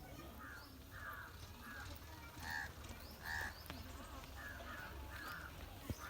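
Crows cawing repeatedly, a short harsh call about every half second, with two louder caws near the middle, over a low steady hum.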